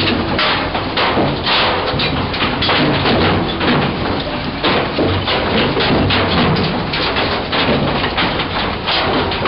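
Windsifter sorting industrial waste: a steady rush of blower air and machine running, with a fast, irregular clatter and thudding of stones, concrete and debris falling off the conveyor over the rotating drum.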